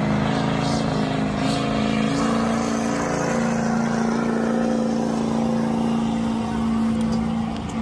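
Pulling truck's engine running hard at high, steady revs under load during its pull, the pitch nearly constant with a slight rise about a second in.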